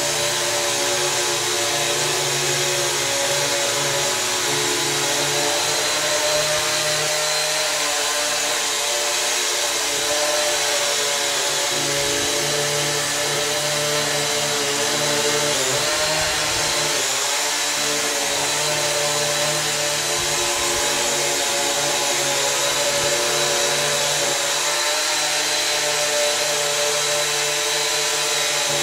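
Small quadcopter drone's electric motors and propellers whining steadily in flight, the pitch dipping briefly about halfway through.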